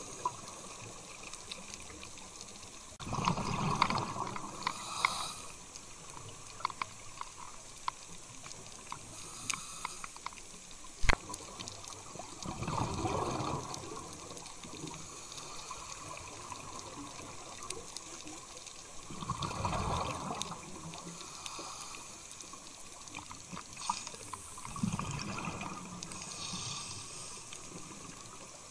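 A scuba diver's exhaled bubbles from the regulator, heard underwater: four gurgling bursts several seconds apart. Between them there is faint crackling and clicking, and one sharp click about eleven seconds in.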